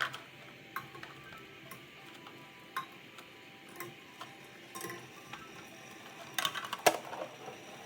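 Scattered light clicks and knocks of objects being handled, with a busier rattling cluster and one sharp knock near the end, over faint background music.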